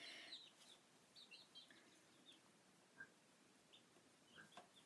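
Young chicken giving a scattering of faint, short, high peeps and chirps.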